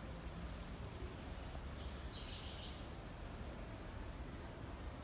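Quiet outdoor background with a low steady rumble and faint, brief bird chirps scattered through it, one slightly longer chirp about two seconds in.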